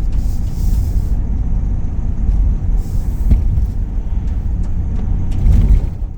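A van driving on the road, heard from inside the cab: a steady low engine and road rumble, with short hissing rushes about a second in and again around three seconds in.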